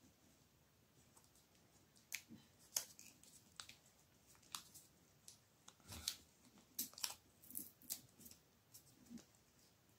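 Faint, irregular crinkling and crackling of a paper insulation strip as it is wrapped and pressed around a small wire-wound iron transformer core. The crackles start about two seconds in.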